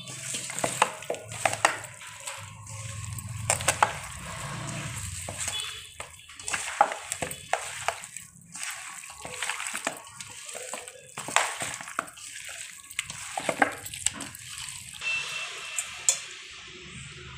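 Raw chicken pieces being mixed by hand with yogurt and spice paste in a stainless-steel bowl, marinating for biryani: irregular wet squelching and slapping, with sharp knocks of the meat and hand against the metal bowl.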